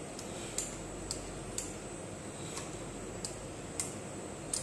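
Air circuit breaker's closing spring being charged by hand: the charging mechanism clicks sharply about twice a second, eight clicks in all, with a short pause near the middle.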